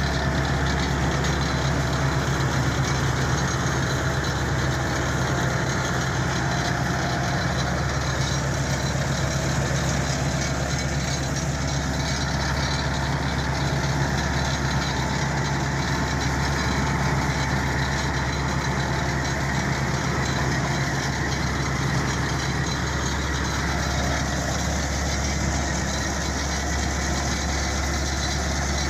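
New Holland TR96 combine's diesel engine running steadily at a low, even speed, a constant low hum with no change in pitch.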